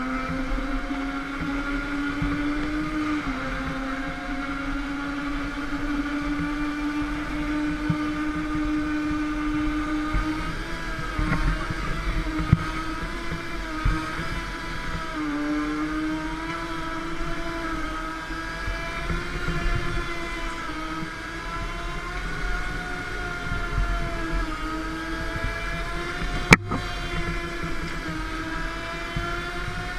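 Go-kart motor running steadily at speed, its pitch rising and falling gently and dipping twice through the corners. A single sharp click comes near the end.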